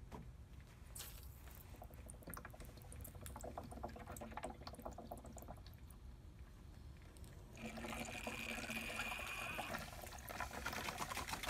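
Water pouring and trickling through a garden hose and clear tubing as a brass hose valve is opened gradually to backflush a car heater core. The flow gets louder about seven and a half seconds in, with a steady hiss.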